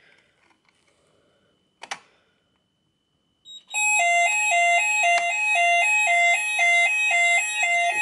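Hochiki ESP addressable fire alarm sounders start about three and a half seconds in: a loud electronic alarm tone alternating rapidly between a low and a high pitch. The alarm is set off by a test key in the manual call point during a routine weekly test. A single sharp click comes about two seconds in.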